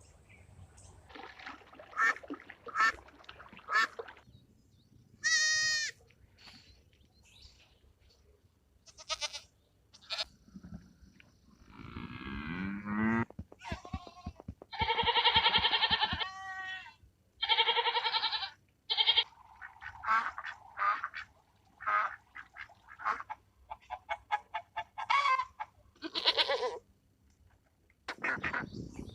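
A string of separate farm-animal calls, one after another with short pauses between them.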